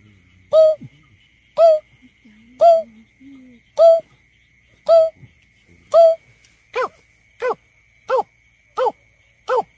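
Greater painted-snipe hooting: six hollow hoots about a second apart, then from about seven seconds in a quicker run of shorter, quieter hoots. A faint steady high tone sits underneath.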